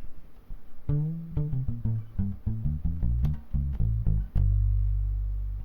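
Ibanez SRH500F fretless bass, muted with a foam thump mute and run through a chorus pedal: a run of short plucked notes starts about a second in, then a long low note is held from about four seconds in, slowly fading.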